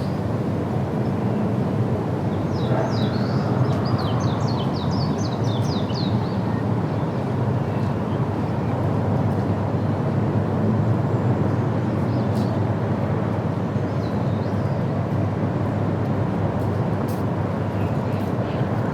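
A bird calling a rapid run of short, high notes for about three seconds, over a steady low rumble.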